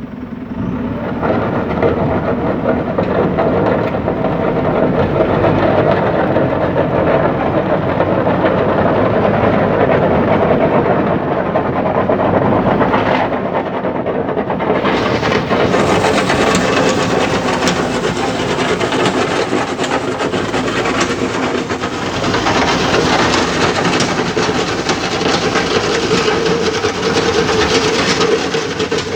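Heavy construction machinery running steadily with a continuous clattering, metallic rattle, the sound growing brighter and harsher about halfway through.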